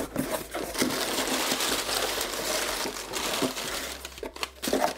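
Cardboard shipping box being opened by hand, flaps scraping and white packing paper crinkling as a small box is pulled out. The rustling is continuous with a few sharp clicks and dies down near the end.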